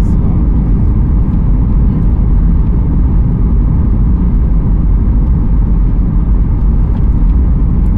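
Steady, loud low rumble inside the cabin of a Boeing 737 MAX 8 descending on approach with flaps extended: engine noise and rushing air, heard from a window seat.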